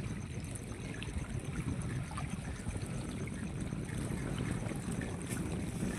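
Wind buffeting the microphone over small waves lapping against a rocky shore, a steady rushing noise with no sharp events.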